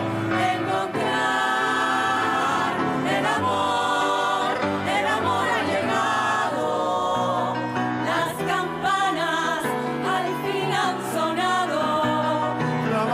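Vocal quartet singing in close harmony with piano accompaniment.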